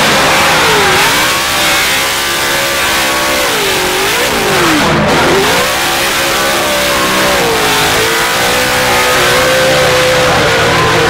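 A drift car's engine revving hard, its pitch dropping and climbing sharply several times as the throttle is worked, then holding at fairly steady high revs for the second half.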